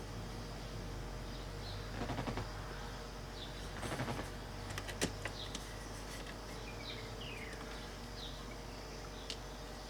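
Handling noise from pulling a C3 Corvette's turn signal switch and its wiring out of the steering column: short rattles about two and four seconds in and a sharp click about five seconds in, over a steady low hum.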